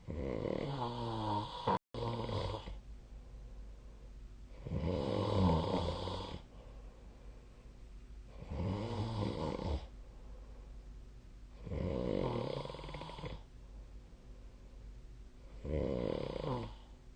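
A sleeping person snoring: five loud snores, each lasting one to two seconds, coming about every four seconds in a steady rhythm.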